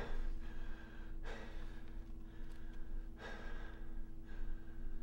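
A man's soft breaths, three short ones a second or two apart, over a steady low hum of room tone.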